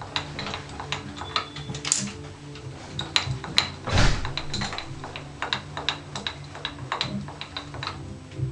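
Irregular light metallic clicks and taps, with a louder knock about four seconds in, from hand-working the milling machine's rotary table setup, over a low steady hum.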